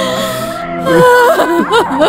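A woman crying and wailing, her voice wavering and breaking, over sad background film music.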